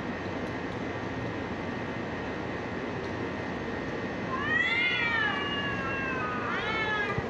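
Two cats in a face-off yowling at each other: a long drawn-out yowl that rises then falls about four seconds in, and a second, shorter one near the end, the warning calls of cats squaring up to fight. Steady background noise runs underneath.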